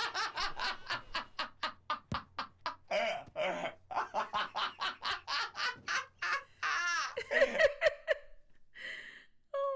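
A woman laughing hard in rapid pulses, several a second, breaking into longer, higher-pitched squeals about seven seconds in.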